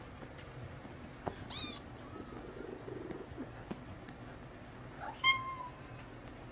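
Cat meowing twice, short high-pitched calls, the second one louder.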